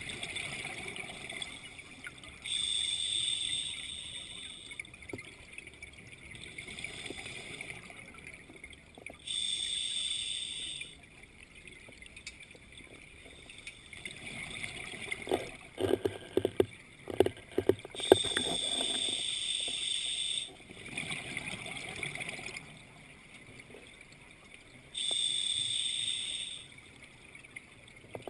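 Underwater breathing through an open-circuit scuba regulator: a hissing inhale about every seven seconds, four in all, each followed by a gurgle of exhaled bubbles. The exhale about halfway through comes out as a loud, spluttering burst of bubbles.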